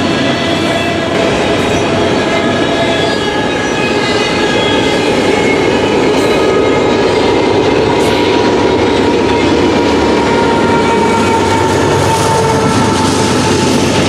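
Freight train of autorack and double-stack container cars rolling past at speed: a steady, loud rumble and clatter of wheels on the rails, with faint long steady tones running over it.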